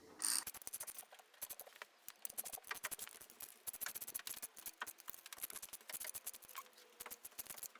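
Faint, irregular small clicks and scrapes of hand tools and metal parts: the rear main bearing cap of a Land Rover 2.25 engine being fitted, its bolts run down only part way.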